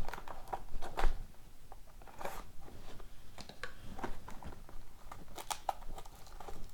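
A sealed trading-card hobby box being opened by hand: scattered clicks and scrapes of cardboard with brief crinkling and tearing of its plastic wrap.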